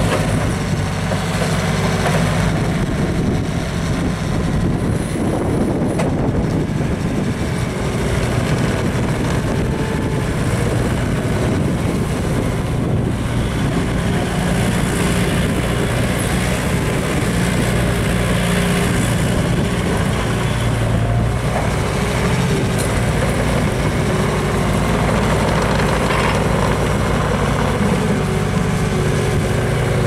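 Bobcat T300 compact track loader's Kubota four-cylinder turbo-diesel running steadily as the machine drives and turns, its engine note shifting a little partway through, with the rubber tracks rolling over gravel.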